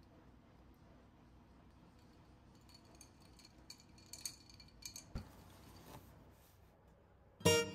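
A few light clinks and taps of tableware at a breakfast table, some with a short glassy ring, and one dull knock. Strummed acoustic guitar music starts just before the end.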